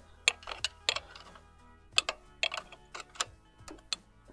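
Irregular sharp clicks and taps of hand tools working on a motorcycle engine, about ten in all, over faint background music.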